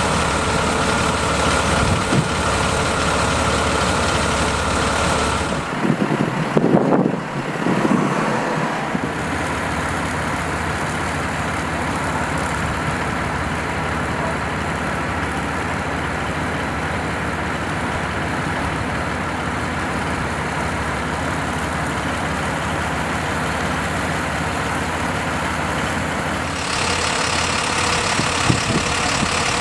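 Mercedes-Benz Unimog fire truck's diesel engine idling steadily, with a few louder knocks about six to eight seconds in. Near the end a hiss joins in.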